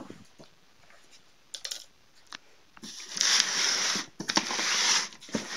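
Packing tape on a cardboard box being cut with scissors and torn open: a few small clicks, then two long rasping rips about three seconds in.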